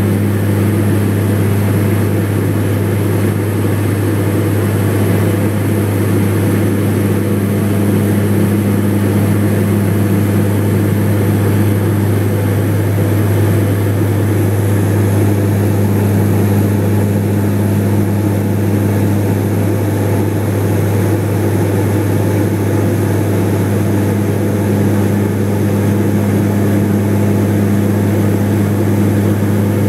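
Aircraft engines droning steadily in level flight, heard inside the cabin as a loud, even low hum with a steady tone above it.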